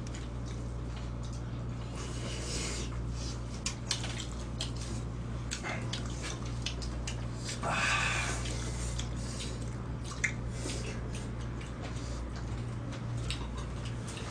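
Sounds of several people eating a meal: spoons and chopsticks clicking against stone pots and dishes in scattered, irregular taps, over a steady low hum. A brief louder noisy sound comes about eight seconds in.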